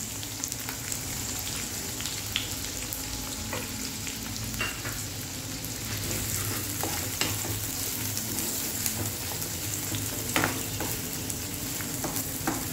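Freshly added chopped onion sizzling steadily in hot oil in a kadhai, stirred with a wooden spatula, with scattered sharper clicks and scrapes against the pan.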